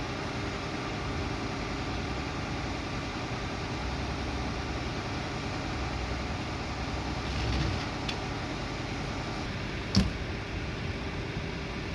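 Vehicle engine idling steadily, with a brief swell in level about seven and a half seconds in and a single sharp click about ten seconds in.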